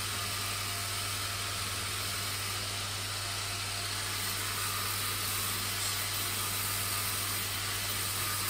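Steel blades of a pair of garden shears being sharpened on the spinning abrasive wheel of a cobbler's finishing machine: a steady motor hum under an even grinding hiss.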